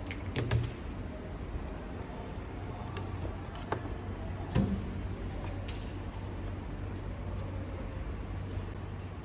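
A few light knocks and clicks from phone parts being handled on the workbench, the loudest about half a second in and again a little before halfway, over a steady low hum.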